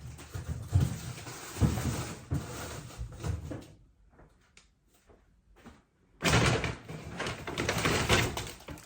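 Groceries being handled and put away: several short knocks and bumps like a fridge or cupboard door and items being set down, a brief lull, then loud rustling of plastic bags about six seconds in.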